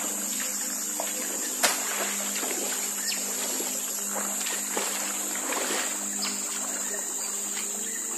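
Water splashing and trickling in a flowing river as someone works in the current, with a sharp knock about one and a half seconds in.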